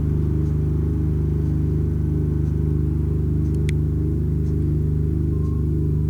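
Synthesized low drone made by turning a nested-circle drawing into left and right audio channels, in the style of oscilloscope audio: a steady buzz of several low tones with a pulsing, warbling texture. A faint tick comes about once a second, and there is one sharp click about three and a half seconds in.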